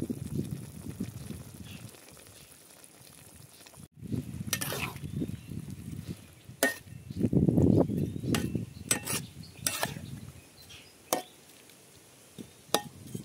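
A metal spatula stirring and scraping pork belly and onions around a steel wok, with several sharp clinks of the spatula against the pan, over light sizzling. The stirring is loudest a little past the middle.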